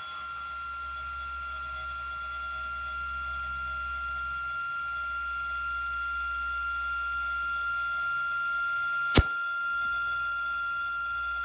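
Compressed air from a boost leak tester hissing into a Nissan 370Z's turbo intake, with a thin steady whistle, as the pressure builds to about 20 psi. A single sharp click comes about nine seconds in, after which the high part of the hiss drops away.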